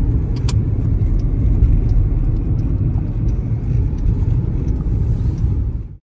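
Steady low rumble of road and engine noise inside a moving car's cabin, cutting off abruptly near the end.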